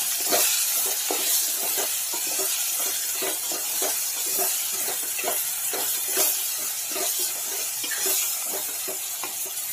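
Chopped vegetables sizzling in hot oil in a metal pot, stirred with a wooden spatula that scrapes and knocks against the pot about twice a second.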